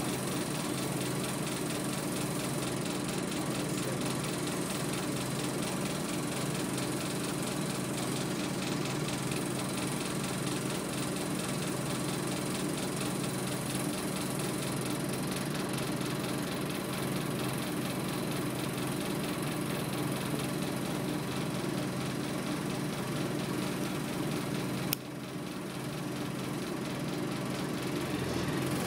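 Scania OmniDekka double-decker bus's diesel engine idling steadily, heard from inside the upper deck. About 25 seconds in comes a single sharp click, after which the sound dips briefly and then recovers.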